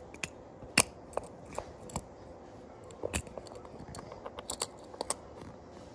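Hard plastic shell of a pull-back toy car clicking and snapping as it is pried apart at its seam by hand: irregular sharp clicks, the loudest just under a second in.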